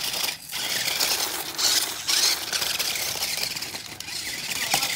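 The dual electric motors of a 1/16-scale 4WD toy RC off-road car whirring as its tyres grind over pebbles and gravel, swelling and easing as it drives, with a sharp knock near the end.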